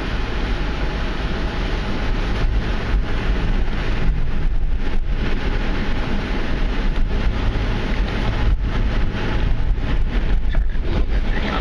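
A Honda CR-V driving along beach sand, its engine and tyre rumble heavy in the lows, with wind buffeting the microphone in uneven gusts.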